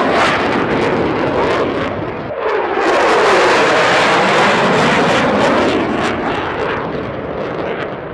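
Fighter jets roaring past at low level, each pass a loud jet roar with a sweeping whoosh, in two passes: the first dies away about two seconds in and a second builds at once and fades near the end.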